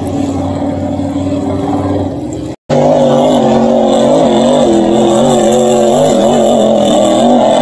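Racing hydroplane engines running flat out on the water. The sound breaks off for a moment about two and a half seconds in, then a second boat's engine takes over, its note wavering up and down as it runs.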